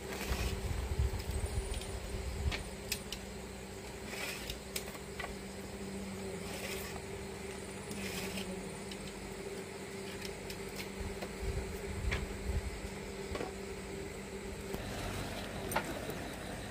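Paper banknotes rustling and flicking as they are counted out and handed over, in short scattered crackles over a steady low hum.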